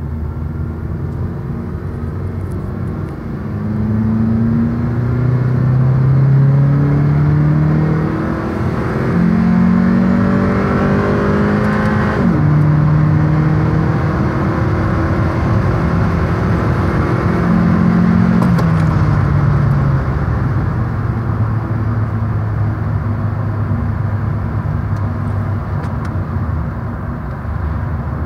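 Honda R18 1.8-litre four-cylinder engine, heard from inside the cabin, pulling hard through the gears. Its pitch climbs, drops sharply at upshifts about eight and twelve seconds in, climbs once more, then settles to a steady lower drone as the car slows. The harsher intake note at high revs is the secondary intake runners opening, not VTEC.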